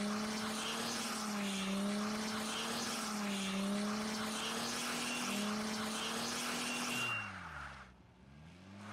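Chrysler Crossfire's 3.2-litre V6 held at high revs through a burnout, the engine note swaying up and down over the hiss of spinning rear tyres. About seven seconds in, the revs drop and the tyre noise stops, leaving a fainter, falling engine note.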